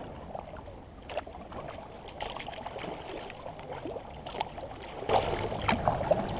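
Kayak paddle strokes: the blade dipping in and water dripping and trickling off it, with small splashes and water lapping at the hull. It gets louder about five seconds in.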